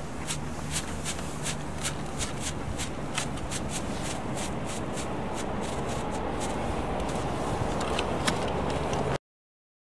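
A small ground firework burning with a steady fizzing hiss and many irregular sharp crackles and pops. The sound cuts off suddenly near the end.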